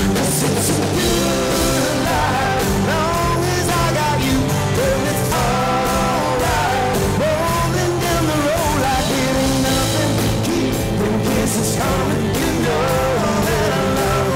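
Live country-rock band playing: drum kit with cymbals, bass, and acoustic and electric guitars on a steady beat, with a lead melody that slides up and down over it.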